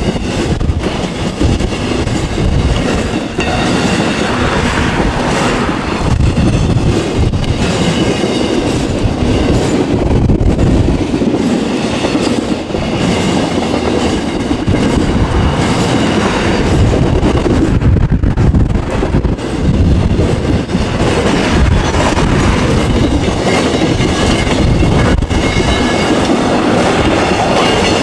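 Intermodal freight train cars rolling past on the rails: a steady rumble of steel wheels on track with repeated clicks and clatter of wheels and car connections.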